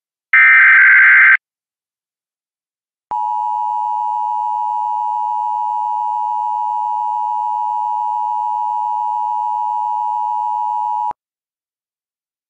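Emergency Alert System tornado warning: a one-second burst of the SAME digital header, a harsh warbling screech, then after a pause the steady two-tone EAS attention signal held for about eight seconds before it cuts off.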